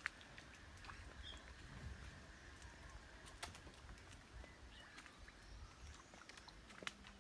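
Near silence: faint outdoor garden ambience with a low rumble and a few soft clicks.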